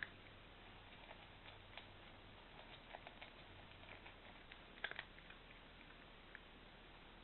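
Faint, scattered clicks and crunches of dry cat food as a cat picks kibble from its bowl, with a louder double click about five seconds in.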